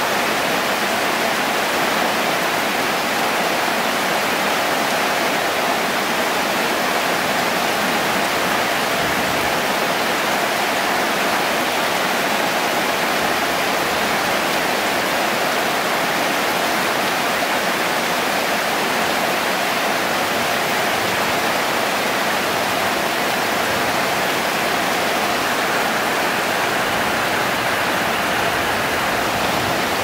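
Steady rain falling on the surface of a lily pond, an even, unbroken hiss of drops striking water and lily pads.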